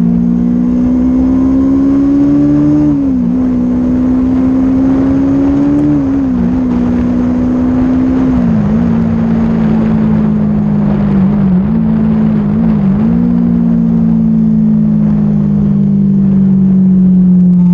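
Stock Kawasaki Z400's parallel-twin engine running at high revs under way, its pitch dipping briefly several times and then falling slowly over the last few seconds. Wind noise on the microphone runs underneath.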